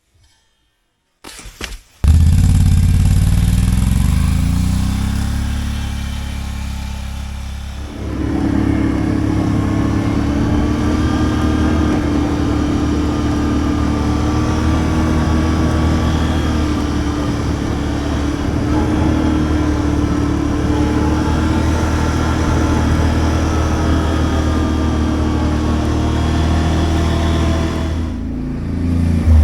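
Can-Am 570 ATV engine started with a short crank about two seconds in and left idling. A few seconds later it revs up and runs under load as the ATV drives off, with a whine that rises and falls.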